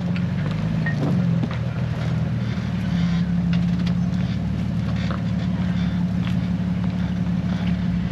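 Jeep engine running steadily at low revs, with a few faint clicks and knocks over it.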